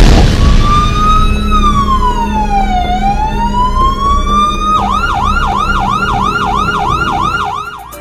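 Electronic emergency-vehicle siren: a slow wail that falls and then rises in pitch, switching about five seconds in to a fast yelp of about four sweeps a second, and fading out near the end.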